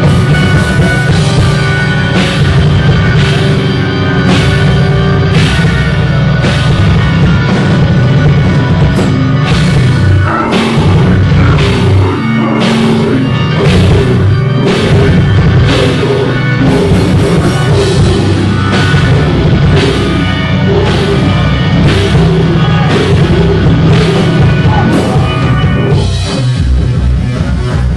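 Live rock band playing loud, with heavy drums hitting a steady beat about once a second; the beat changes near the end.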